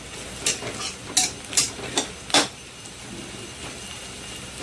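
A stirring spoon knocking and scraping against a cooking pan as frying onion, garlic and curry leaves are stirred: five sharp clinks in the first two and a half seconds, the last the loudest, then quieter.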